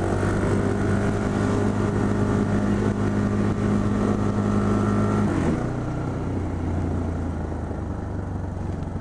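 2012 KTM 690 Duke's single-cylinder engine held at steady high revs under load. A little over five seconds in, the revs drop and the engine settles to a lower, quieter note.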